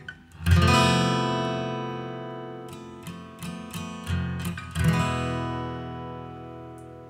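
Background music: an acoustic guitar strums a chord that rings out and slowly fades, plays a few quick plucked notes, then strums a second ringing chord.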